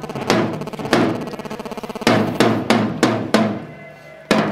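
Marching snare drum beating a slow cadence of single strikes, with a rapid roll about a second in that lasts about a second.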